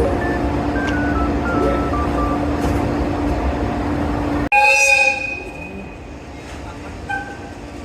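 Music with a stepping melody, then an abrupt cut about four and a half seconds in to a train's horn sounding once, briefly and loudly, followed by the quieter running noise of the train.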